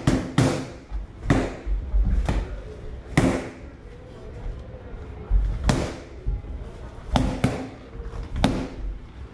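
Boxing gloves striking focus mitts: about ten sharp slaps spread unevenly, some single and some in quick pairs, as in punch combinations.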